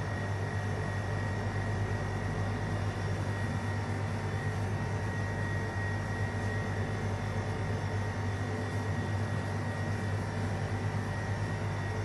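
Steady mechanical hum from running machinery: a strong low drone with a thin high whine above it, unchanging throughout.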